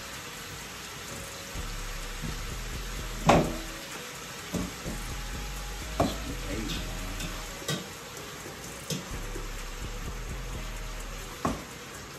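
Ground beef sizzling in a frying pan, with a fork knocking and scraping against the pan now and then as the meat is stirred and broken up. There are about six sharp clicks; the loudest comes about a third of the way through.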